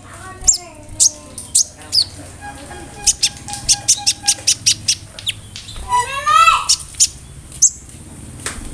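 A caged leafbird ('konin') sings a varied mimicking song of sharp, sudden chip notes. About three seconds in comes a fast run of about five notes a second, and near the middle a swooping whistled phrase rises and falls.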